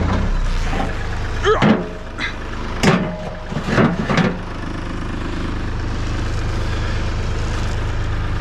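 An engine idling steadily, with a few short, sharp knocks in the first half; after that only the idling engine is heard.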